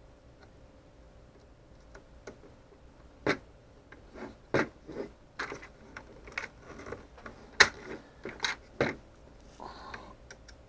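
Irregular sharp clicks and knocks of hard plastic parts and a small screwdriver as small screws are driven into a plastic model engine kit, starting about two seconds in.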